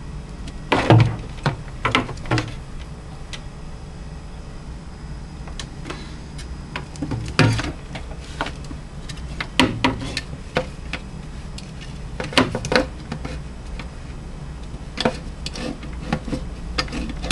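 Scattered, irregular knocks, taps and bumps against a wooden cupboard, some with a dull thud, over a steady low hum.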